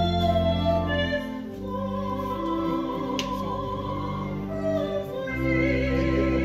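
Live string ensemble playing a slow classical piece: long held notes with a wavering, vibrato melody line over low sustained bass notes that change a couple of times.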